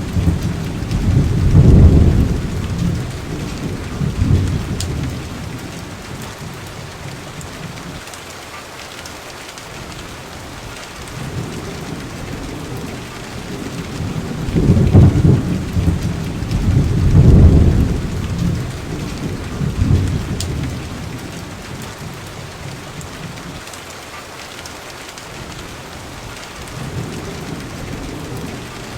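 Steady rain with rolling thunder: deep rumbles swell about two seconds in, again around fifteen and seventeen seconds, and build once more near the end.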